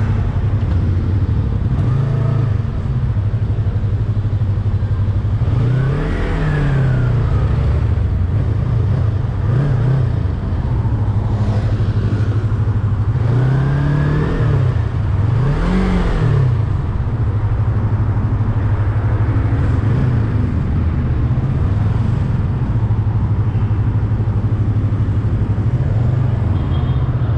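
Yamaha R25's parallel-twin engine running at low revs in stop-and-go traffic, with about five short rises and falls in revs as the throttle is opened and closed.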